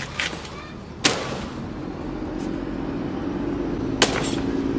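A heavy steel cleaver chopping into green banana plant stalks: two sharp chops, about a second in and near the end, with a lighter one just after the start.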